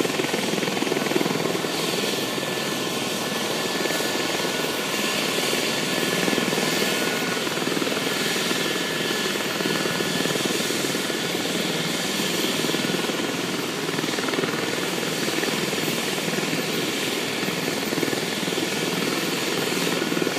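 Air ambulance helicopter running on the ground after landing: a steady rotor and engine noise with a faint high whine.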